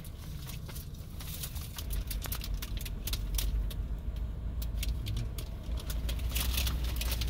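Low, steady rumble of a car interior, with a paper food wrapper and paper bag crinkling in short, sharp rustles.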